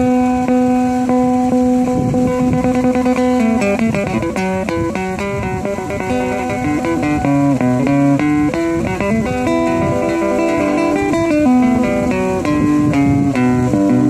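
Solo classical guitar played fingerstyle. A chord rings for about three and a half seconds, then gives way to a flowing line of quicker plucked notes.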